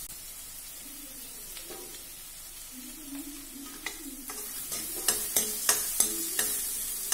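Chopped onions and curry leaves sautéing in oil in a metal kadai with a steady sizzle. From about four seconds in, a steel ladle stirs them, scraping and knocking against the pan several times.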